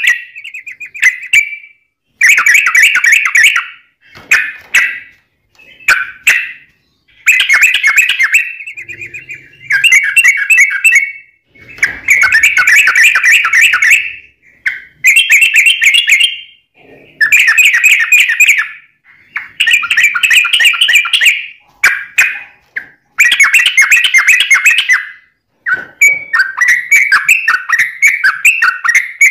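Yellow-vented bulbul (trucuk) singing its long, rapid chattering song, a trill-like run of notes. It comes in phrases of one to two seconds with brief pauses between them, and near the end the notes run on with hardly a break.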